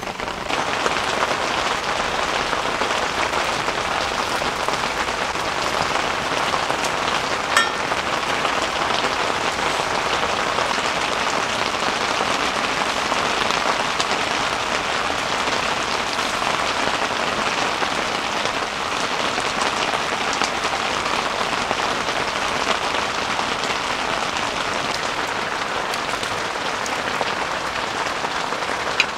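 Heavy rain falling steadily, a dense even hiss of drops. A single sharp click about seven and a half seconds in.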